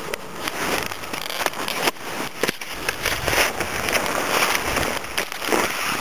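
Crackling and rustling close to the microphone as gloves and gear are handled on skis in snow, with wind rumbling on the microphone from about halfway through.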